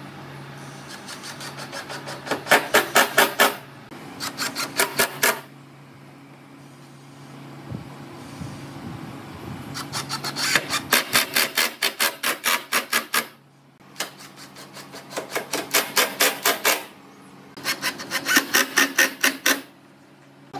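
Hitachi cordless impact driver driving screws into pine planks: five bursts of rapid hammering, each one to three seconds long, with short pauses between. A steady low hum runs underneath.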